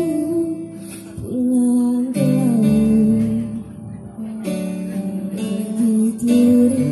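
A woman singing live into a microphone over an amplified guitar accompaniment, holding long notes with vibrato.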